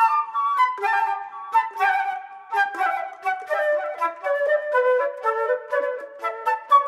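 Background music: a flute melody of short notes that steps downward in pitch through the middle, with no bass.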